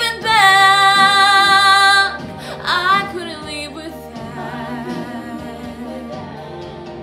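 A woman's solo voice singing a musical-theatre song: she holds one long note with vibrato for about two seconds, sings a short phrase that bends upward about a second later, then stops. An instrumental accompaniment carries on underneath and fades toward the end.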